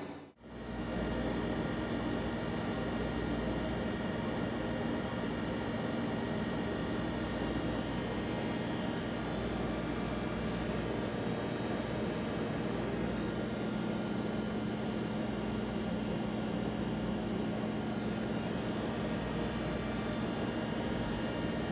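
Mori Seiki NLX-2500 CNC lathe running under power: a steady mechanical hum with a few fixed tones over a noisy whir, unchanging after a momentary dropout at the very start.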